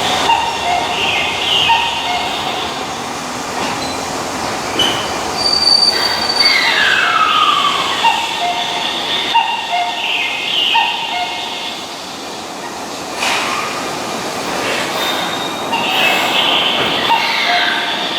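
Keihan Electric Railway train moving through the station, with a steady rumble and high, wavering wheel squeals that come and go, one falling in pitch.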